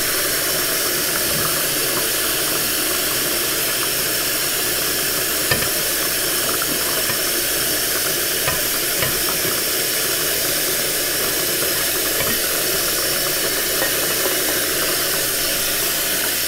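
Hot tap water running steadily over browned ground beef in a strainer, rinsing the fat off. A light knock about five and a half seconds in.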